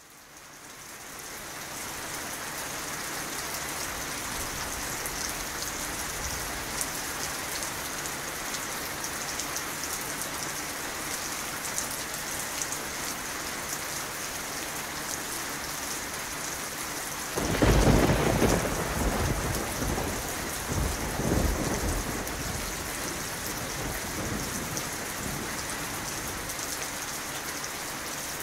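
Steady rain falling, fading in over the first couple of seconds. About two-thirds of the way through, thunder breaks in suddenly as a loud low rumble, rolling for a few seconds with a second, smaller swell of rumble shortly after.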